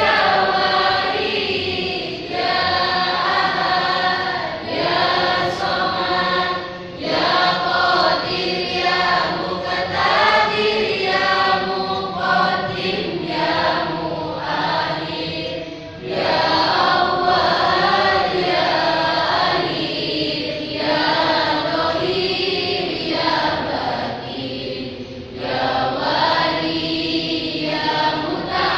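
A roomful of people singing a song together, phrase after phrase with short breaks between lines.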